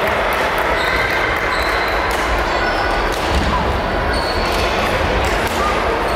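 Badminton hall ambience: frequent sharp racket-on-shuttlecock hits and short shoe squeaks on the court floor from several courts, over a steady din of voices, echoing in the large hall.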